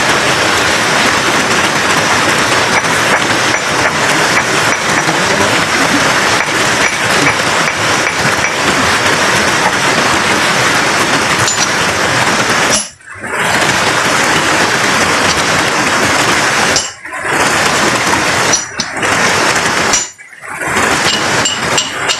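Steady, loud rush of flowing creek water, broken by a few sudden short drops in the sound in the second half.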